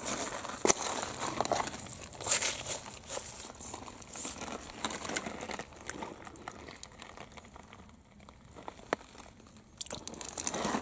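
Crunching and rustling of wet gravel and pebbles in a shallow stream bed, stepped on and handled, with a few sharp clicks. It is busiest in the first half, eases off, then picks up again near the end as a hand reaches into the water for a stone.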